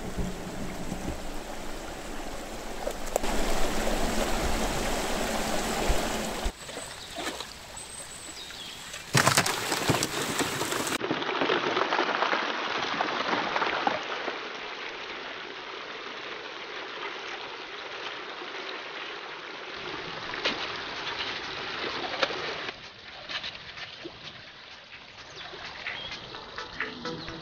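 Creek water rushing over stones and pouring down a metal gold-panning sluice box, heard in a string of short clips that change abruptly in loudness.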